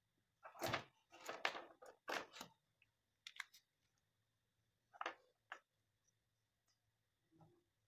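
Wires and small parts being handled on a workbench: a few short rustles and clicks, the loudest in the first two and a half seconds, then two more around five seconds in.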